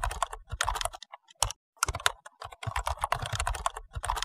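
Keyboard typing sound effect accompanying on-screen text being typed out letter by letter: runs of rapid keystroke clicks broken by short pauses.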